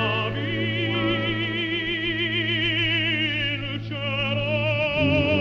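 Background music in an operatic style: a voice holds long notes with a wide vibrato over a sustained low accompaniment, and the bass note shifts near the end.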